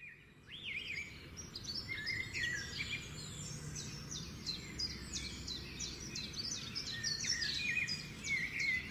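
Birds singing and chirping in a busy stream of quick, high, downward-sweeping notes over a steady low outdoor background noise.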